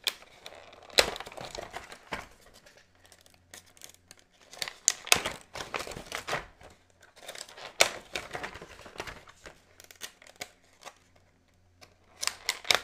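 A clear plastic blister cover is peeled off a vacuum-formed packaging tray, crinkling and crackling irregularly. Sharp plastic snaps come about a second in, around five seconds and near the end.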